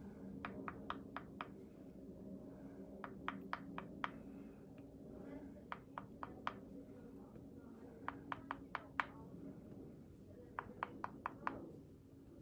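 The back end of a liner brush tapping dots of white paint onto a painted door hanger: quick runs of four to seven light taps, repeated several times with short pauses between. A faint steady hum runs underneath.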